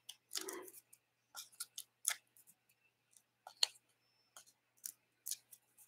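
Faint, scattered clicks and rustles of paper pieces being handled and pressed onto a card front with foam adhesive dimensionals.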